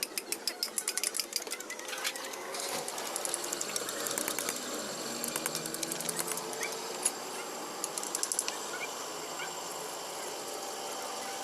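Rapid metallic clicking from a hand tool at work on the engine, about seven clicks a second, coming in several bursts.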